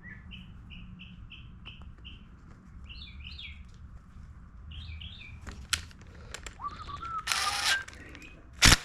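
A small bird chirping over and over in quick, even notes, then in short clusters. Light clicks of parts being handled follow, with a brief hiss and two sharp, loud knocks near the end.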